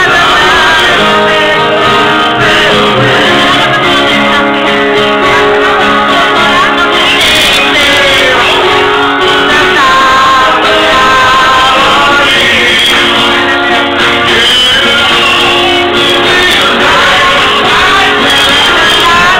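Loud music with a man singing into a microphone over guitar accompaniment, and people in the room singing along.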